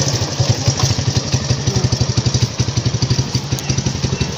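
Motorcycle engine idling, an even, rapid putter.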